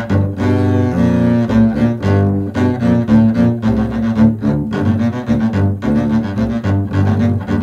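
Background music: a duet for two double basses playing a moving line of notes.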